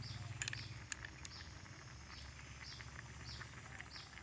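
A few light clicks of snail shells knocking in a plastic bowl as they are picked through by hand, loudest in the first second and a half. Under them a faint high chirp repeats about every two-thirds of a second.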